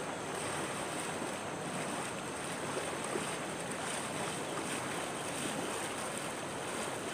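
Shallow, swift river current rushing steadily over a stony bed, the water running high and fast after a flood.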